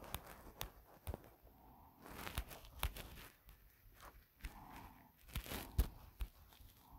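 Phone-handling noise: irregular light clicks and soft scuffs, about a dozen sharp taps amid faint rustling, as from fingers working the touchscreen of a phone held close to its microphone.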